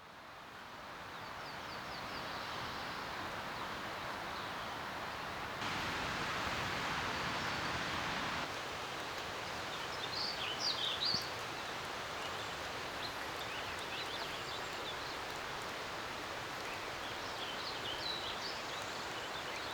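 Steady outdoor ambience: an even hiss of rain or running water, with a few short bird chirps about ten seconds in and again near the end.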